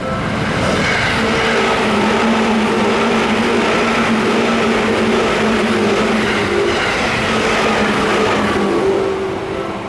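Seibu Shinjuku Line electric train passing over a level crossing: loud rail and running noise with a steady hum, lasting about nine seconds and easing off near the end. The crossing's warning bell keeps ringing underneath.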